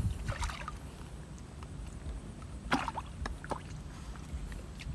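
Hands splashing and sloshing through shallow water while handling a fishing net, with a few short sharper splashes, the loudest nearly three seconds in.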